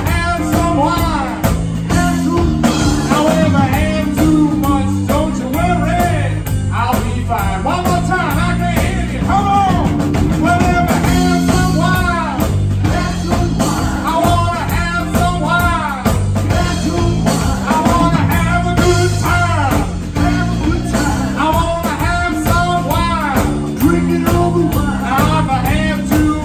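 Live electric blues band playing: drums, electric bass and electric guitar keep a steady shuffle while a lead line bends up and down in pitch over the top.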